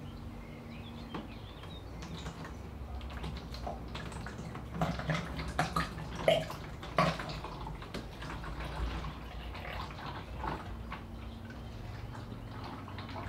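Filtered vegetable oil pouring in a thin stream through a plastic funnel into a plastic jerry can, trickling, with a cluster of louder gurgles and drips in the middle.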